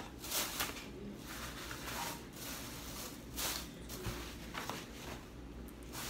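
A thin plastic bag rustling and crinkling in short, irregular bursts as it is handled.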